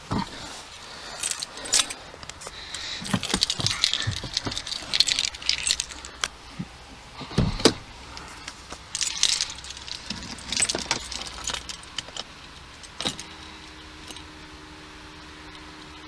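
A bunch of keys jangling and clicking in irregular clusters inside a car cabin. About thirteen seconds in there is a single knock, and after it a steady low hum.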